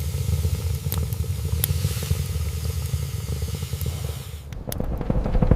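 Heavy rain hissing over a steady low rumble, with a few sharp ticks. About four and a half seconds in the hiss falls away and a deep rumble swells near the end.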